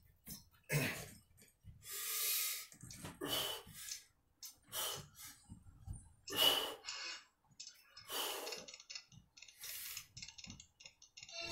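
A man breathing hard in short, noisy puffs, about one every second and a half: exertion breaths with each rep of an incline dumbbell press.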